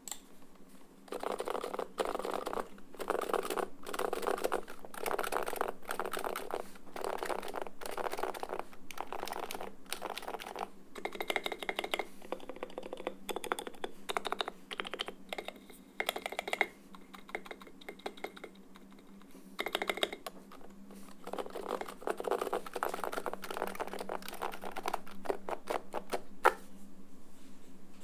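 Typing on a Norbatouch rπ keyboard with Topre-style rubber-dome switches (stock Novatouch domes, lubed sliders) under SA-profile keycaps: fast runs of keystrokes with short pauses between them, stopping shortly before the end.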